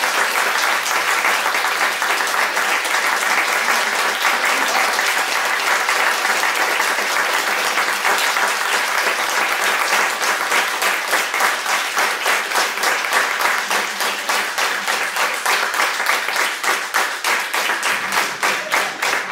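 Audience applauding, a dense wash of clapping that thins toward the end into more distinct separate claps.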